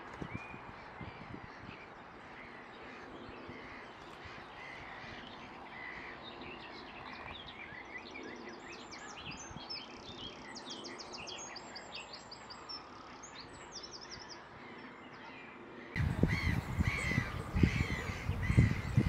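Wild birds singing and calling around a lake: many short chirps and quick high trills. About 16 s in the sound changes abruptly to a louder recording with low rumbling thumps under repeated bird calls.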